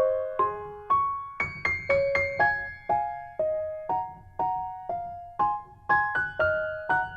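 Background music: a gentle electric piano melody, single notes struck about two or three times a second, each fading away.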